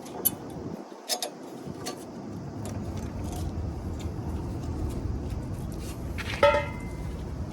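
Small metal parts clinking and scraping as brake pads and caliper parts are handled, with a sharp ringing metallic clink near the end. A low steady rumble runs underneath from about two seconds in.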